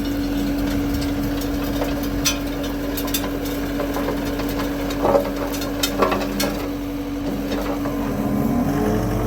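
John Deere 331G skid steer's diesel engine and hydraulics running at a steady pitch, with a few sharp knocks and clatters from the screening bucket. The engine starts to rev up near the end.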